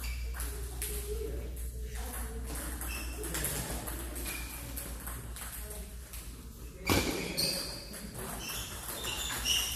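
Table tennis balls clicking off bats and tables from several tables at once, in an irregular patter of light taps, some with a short high ring. One louder knock comes about seven seconds in.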